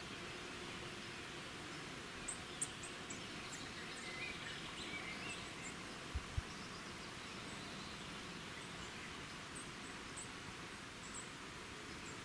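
Faint outdoor ambience: a steady background hiss with small birds chirping now and then in short high notes, and two brief low thumps a little past halfway.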